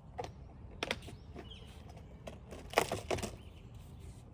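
A few scattered clicks and knocks, the loudest pair close together near the end.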